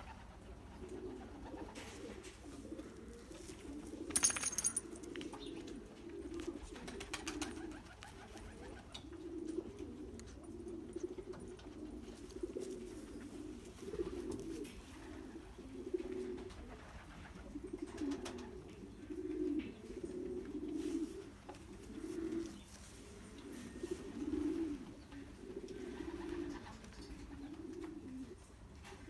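Domestic racing pigeons cooing over and over, low coos following one another about every second or so. A brief sharp high-pitched sound cuts in about four seconds in.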